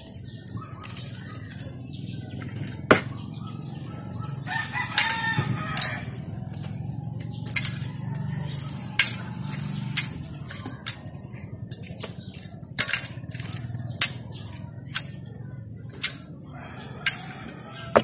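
A rooster crows once, about five seconds in. Around it come repeated sharp clicks and taps from eggs being handled and cracked, over a steady low rumble.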